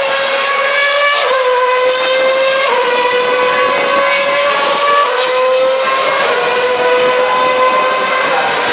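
Formula 1 car engine screaming at high revs, its pitch dropping a little at each upshift and climbing again between shifts, several times over.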